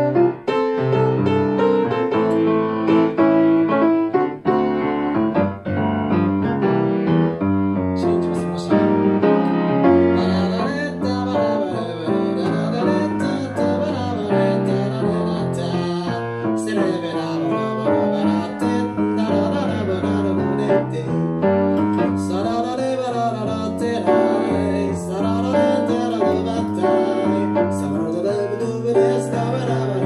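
Grand piano playing a swinging jazz standard, with the pianist's own singing voice joining over the piano about ten seconds in.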